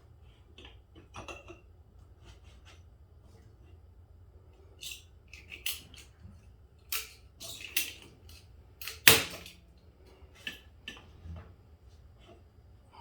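Motorcycle front-fork parts and hand tools being handled: scattered metallic clicks and knocks, with one sharp, loud knock about nine seconds in.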